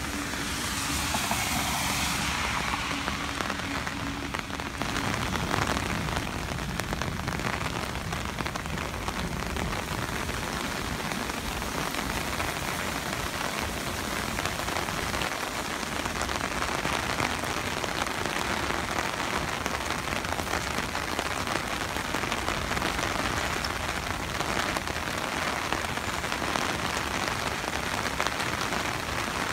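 Steady hiss of heavy rain and rushing floodwater from storm runoff pouring through roadside ditches and down a spillway. A brief louder swish comes about a second in.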